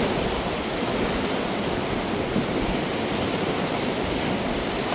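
Steady rushing of white-water river rapids: an even hiss of moving water with no breaks.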